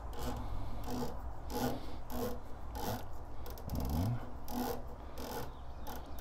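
Turret of a Discovery Optics 4.5-18x44 rifle scope being twisted by hand during a box test, a rasping rub roughly every half second to second. A short rising squeak comes about four seconds in.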